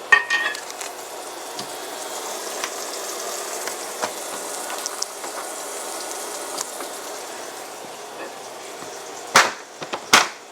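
Butter sizzling in a hot frying pan, a steady hiss with scattered small crackles. Two loud sharp knocks come near the end.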